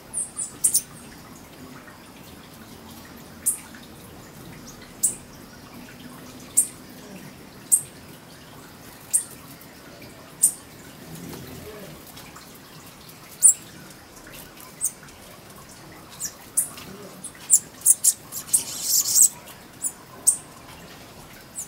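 Small birds chirping: short, high-pitched chips scattered through, coming thick and fast near the end.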